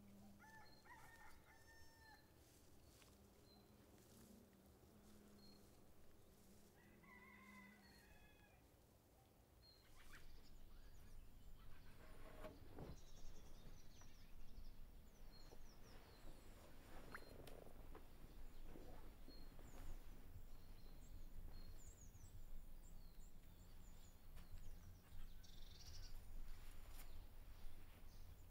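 Quiet rural outdoor ambience with faint bird calls: a few short pitched calls near the start, and high chirps later. About ten seconds in, the background grows a little louder, with a few soft knocks.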